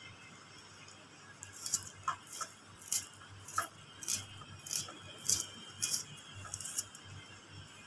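Kitchen knife cutting small peeled onions held in the hand over a steel bowl: about a dozen short crisp clicks, roughly two a second, as the blade snaps through each piece.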